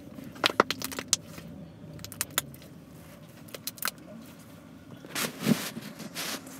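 Small hard objects clicking and jingling in a string of sharp clicks, then about a second and a half of rustling near the end, over a car engine idling in the cabin.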